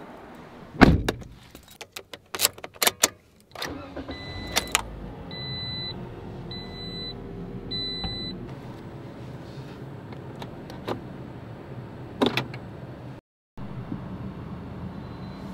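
A car door is pulled shut with a thud, followed by a few clicks. The engine then starts and idles steadily while a dashboard chime beeps four times, the seatbelt reminder. Another click comes near the end.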